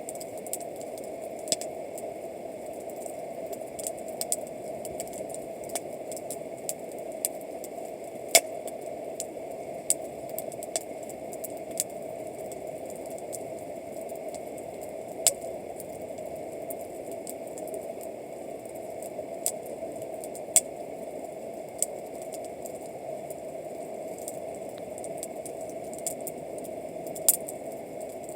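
Wood campfire burning: irregular sharp crackles and pops of the firewood over a steady hiss.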